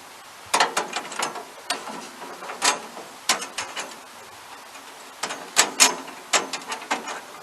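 Ratchet clicking in three quick runs as the sawmill's blade tensioner is wound loose to slacken the band blade.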